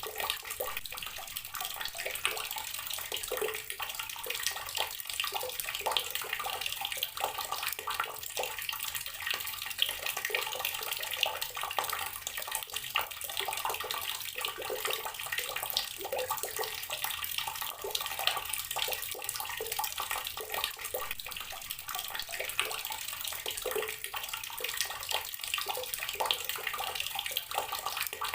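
Water running steadily from an outdoor tap and splashing, with a dense patter of small splashes throughout.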